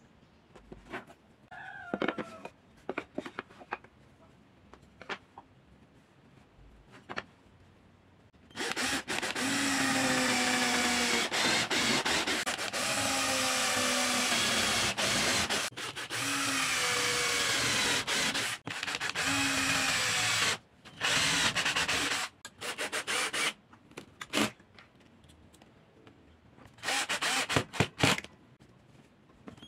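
A handheld drill-driver boring into wood, in one long run of about twelve seconds, then several shorter bursts as it drives in screws. Before it starts there are only a few light taps and clicks of handling.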